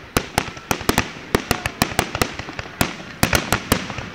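Aerial fireworks bursting overhead: a rapid, irregular string of sharp bangs and pops, several a second.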